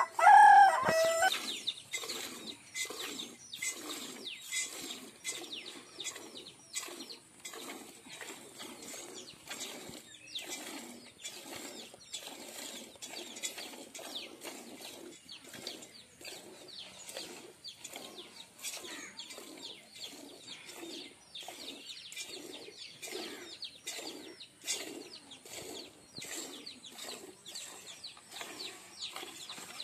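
Cow being milked by hand: jets of milk squirting into a steel pot already part full of milk, about two squirts a second in a steady rhythm. A rooster crows loudly at the very start.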